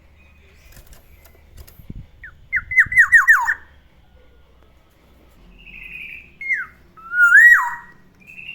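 Black-naped oriole singing: a quick run of about six falling whistles, then a harsh nasal note and a fluty whistle that rises and drops away, with another harsh note near the end.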